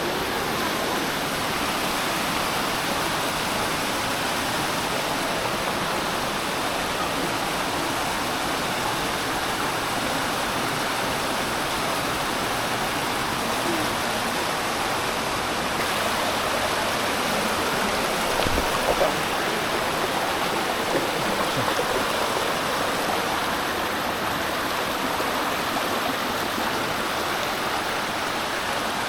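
Mountain creek rushing and cascading over rocks in a narrow gorge, a steady, even rush of water. A couple of brief knocks come about two-thirds of the way through.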